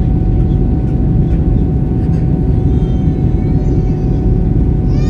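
Steady roar inside the cabin of an Airbus A320 in flight, from engines and airflow, with a faint constant hum.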